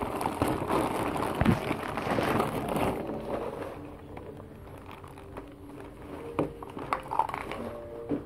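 Packaging rustling and crinkling as a teddy bear is pulled out of a gift box, busiest in the first three seconds, then quieter handling with a few soft knocks.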